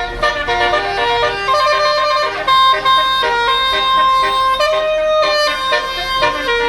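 Tour bus's basuri telolet multi-tone air horn playing a melody, loud: several horn tones sound together and step quickly from note to note.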